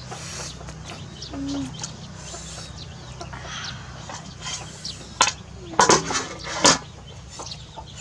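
Chickens clucking, with short chirping calls throughout, then three sharp metal clanks about five to seven seconds in as the aluminium pot's lid and ladle are handled.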